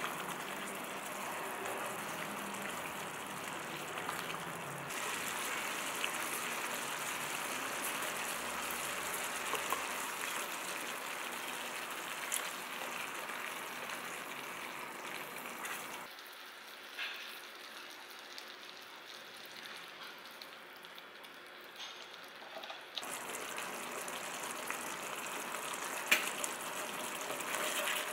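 Japanese chicken curry simmering in a pan, its thick sauce bubbling in a steady wet hiss while a silicone spatula stirs it, with a few light knocks of the spatula against the pan.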